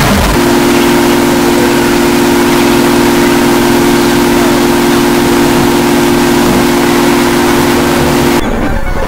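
Harsh noise music: a loud, dense wall of static with a chord of steady held tones droning underneath. The static thins out abruptly near the end.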